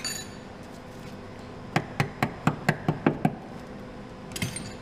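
A quick run of about eight light hammer taps, starting nearly two seconds in, seating the lock clip that holds a brake flexi hose in its bracket. Short metallic clinks come just before the taps and again near the end.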